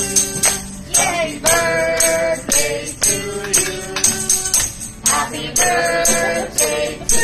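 A small group singing a birthday song together, with an acoustic guitar strummed along in a steady beat about twice a second.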